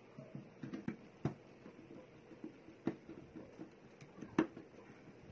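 A flat screwdriver turning the terminal screw of a thermal overload relay to clamp a wire: faint, irregular clicks and ticks of metal and plastic, with a few sharper clicks spread through.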